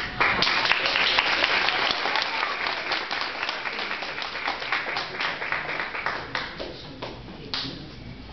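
Applause: many hands clapping together, dense at first and then thinning out and fading toward the end.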